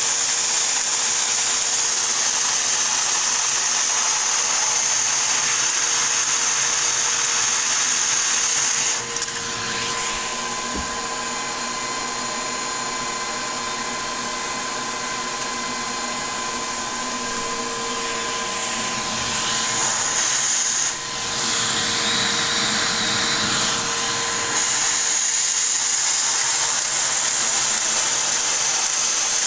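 A Lego model steam engine running under motor drive: a steady motor whir with its plastic flywheel, connecting rod and Brown valve gear turning. About nine seconds in the sound drops in level and turns lower and more tonal, then returns to its earlier fuller whir a few seconds before the end.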